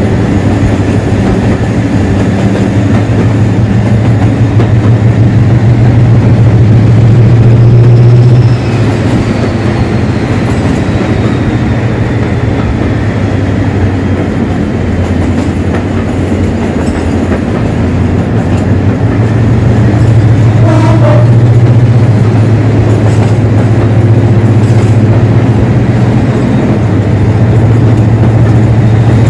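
Class 56 locomotive's Ruston Paxman 16-cylinder diesel engine running under power, a loud deep throbbing drone with a high-pitched whine. About eight seconds in, the drone drops back and the whine falls away in pitch; the drone builds again about two-thirds of the way through.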